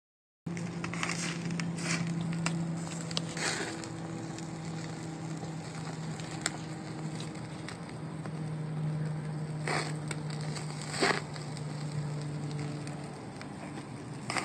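Hamburger patties and meat sizzling over a charcoal grill, a steady crackle with occasional sharp pops, over a steady low hum.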